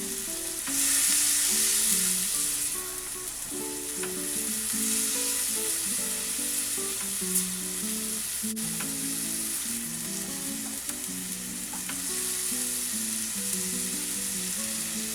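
Boiled sweet corn kernels sizzling in melted butter in a pan while being stirred, with a few light clicks of the spatula; the sizzle is loudest about a second in. Soft background music of plucked notes plays under it.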